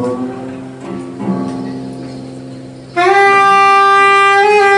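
Live jazz band: softer notes fade away, then about three seconds in a saxophone comes in loud on one long held note.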